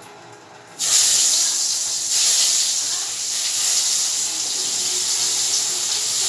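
Pointed gourd (potol) slices going into hot oil in a wok, breaking into a sudden loud sizzle about a second in that carries on steadily as they fry.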